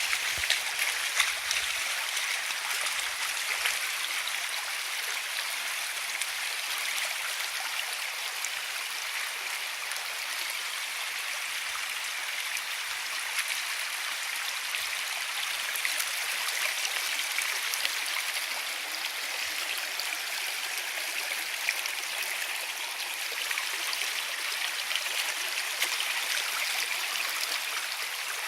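River water rushing steadily, a river running high and deep after wet weather.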